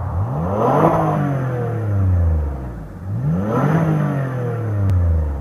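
2015 Lexus RX 350's 3.5-litre V6 exhaust, revved twice from idle. Each rev climbs quickly and then falls back slowly to idle.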